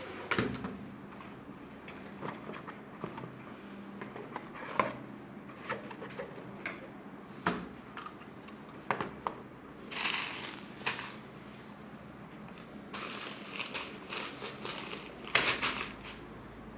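Handling noise: irregular sharp clicks and knocks with a few short bursts of crinkling and rustling, the loudest a cluster near the end.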